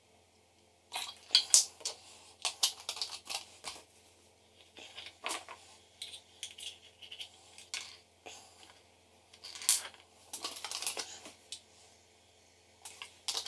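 Hands handling a small metal alcohol burner, a plastic bottle and the burner's cotton wick: irregular clicks, taps and rustles in clusters, starting about a second in.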